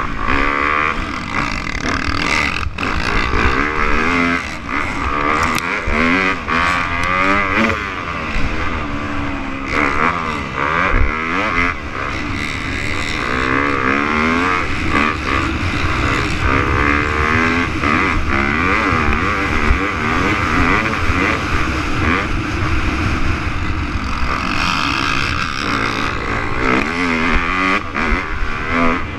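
Dirt bike engine at race pace, its pitch climbing and dropping over and over as the rider works the throttle and gears, with wind noise and a few knocks from the bumps.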